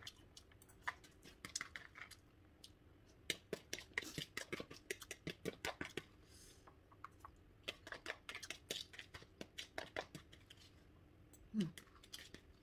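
Close-miked eating: chewing and slurping instant noodles, heard as rapid, irregular wet mouth clicks and smacks. There is a short hiss about halfway through and a brief low murmur near the end.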